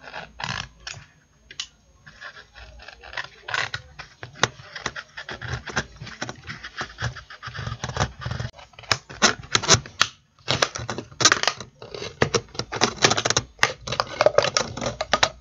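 Utility knife blade cutting and scraping through the thin wall of a plastic drink bottle: a run of irregular scratchy crackles and clicks, denser and louder in the second half.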